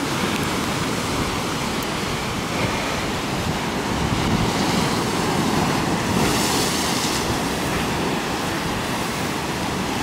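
Sea surf breaking and washing over a rocky shore. About six seconds in, one wave crashes against the rocks with a louder splash and hiss.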